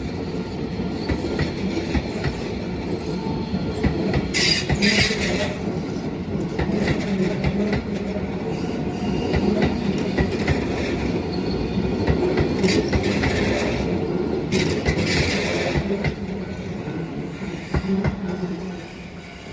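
Keio 8000 series electric train passing over a level crossing, wheels clattering over the rail joints with a steady rumble. There are brief higher-pitched bursts of wheel noise about four seconds in and again around fifteen seconds. The sound dies down near the end.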